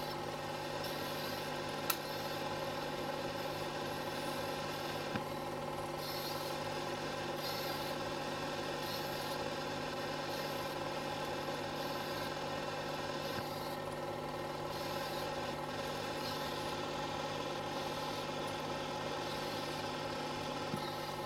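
Steady mechanical hum of a film projector running, a stack of even tones that does not change, with a sharp click about two seconds in and a fainter one a few seconds later.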